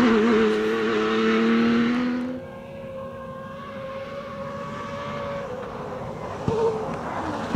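Rally car engine held at a steady note as the car drives away on a dirt track, cutting off abruptly about two and a half seconds in. A quieter, more distant car engine follows with a steady note, then grows louder again near the end as a car approaches.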